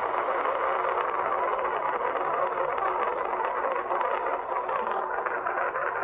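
Steady rushing hiss of a BDA-2 microphone jammer's masking noise, heard on a recording played back through a smartphone speaker. It starts abruptly where the jammer switches on and drowns out the voice on the recording.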